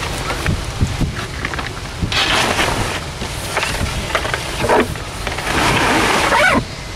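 Surfboard being handled and slid into the back of a car: scattered knocks, then two longer stretches of scraping and rubbing, about two seconds in and again near the end, with short squeaks before the noise cuts off.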